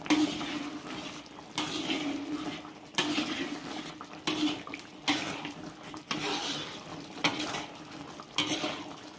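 A spatula scraping and knocking against a wok as chicken pieces are stirred in a thick soy-ginger sauce, a stroke every second or so, with the wet sauce sizzling between strokes.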